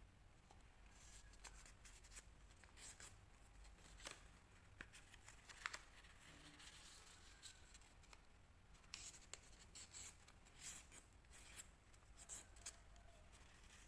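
Faint crackles and rustles of thin origami paper being handled and creased by hand, with short sharp crinkles coming in two busy spells.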